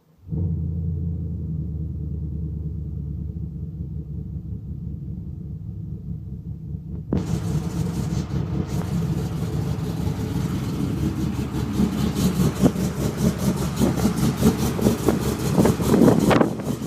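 Cammed truck V8 idling with an uneven lope through a catless dual exhaust with an X-pipe and Borla XR1 mufflers. It comes in suddenly out of silence. About seven seconds in the sound turns brighter and harsher, and toward the end the lope gets choppier.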